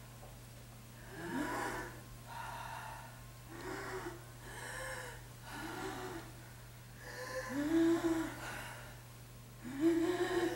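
A human voice making a series of breathy, wordless vocal sounds, each a short call that rises and falls in pitch, about seven in all, a second or two apart, loudest near the end. A steady low hum sits underneath.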